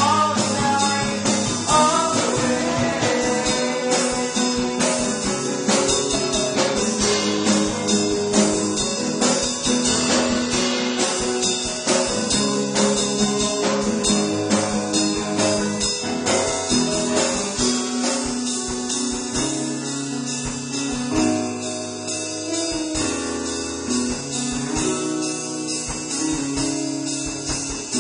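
A band covering a pop-punk song: guitars and drums, with singing.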